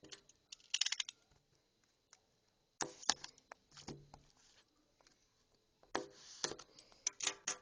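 A multitool's packaging being opened by hand: bursts of clicks, scrapes and rustles, with short quiet gaps between them.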